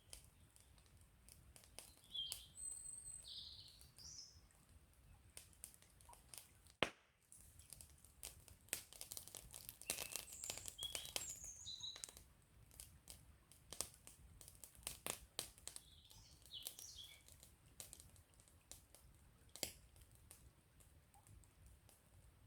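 Quiet campfire crackling, a steady run of small snaps from burning wood with one sharp pop about seven seconds in. Small birds chirp briefly a few times.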